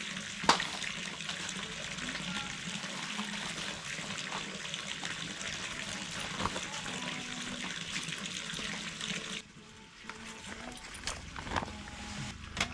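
Water running steadily, as from a tap, cutting off abruptly about nine and a half seconds in. A sharp knock sounds just after the start, and a few light knocks follow near the end.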